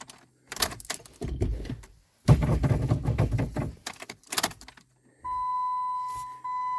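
A few clunks and knocks from a 2010 Jeep Compass. About five seconds in, the car's steady electronic warning chime comes on.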